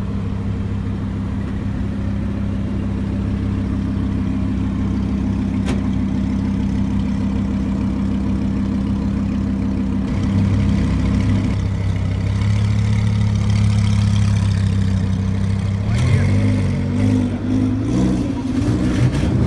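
Lamborghini Huracán's V10 idling steadily, its note shifting about ten seconds in, then rising and falling in pitch near the end as the car pulls away.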